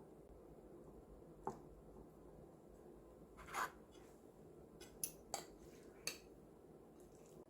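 Faint kitchenware handling in a quiet room: a sharp tap about one and a half seconds in, a short scrape about halfway through, then three more sharp clicks.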